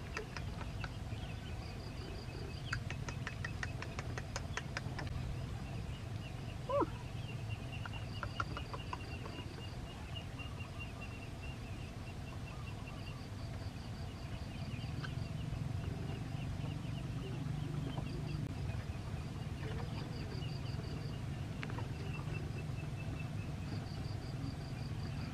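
Outdoor ambience: repeated high pulsed trills at two fixed pitches come and go over a steady low hum. A few faint clicks sound in the first seconds, and one short falling squeal about seven seconds in is the loudest moment.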